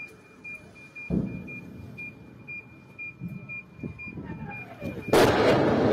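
Car alarm set off by a nearby missile blast, beeping rapidly at about four high beeps a second, with a short falling whoop near the end. A sudden thud comes about a second in, and about a second before the end a loud rushing noise starts abruptly and drowns the alarm.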